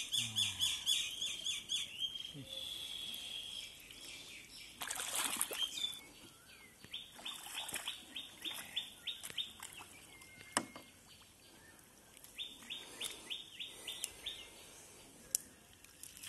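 A bird calling in fast runs of short chirps, about four or five a second, three times over a couple of seconds each. Water splashes once in the shallow mud, about five seconds in.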